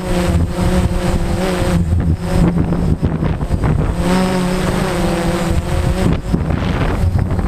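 DJI Phantom quadcopter's propellers humming with a wavering pitch, partly buried under heavy wind buffeting on the microphone in strong wind.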